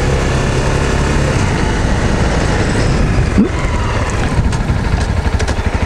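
Honda CRF250M's single-cylinder four-stroke engine running under the rider, with wind and road noise. Past the middle it settles into a slow, even low-revving beat.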